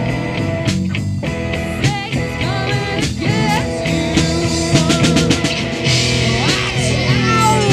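Freestyle rock jam by a live band: drum kit, guitar and a singing voice, with gliding pitch sweeps near the end.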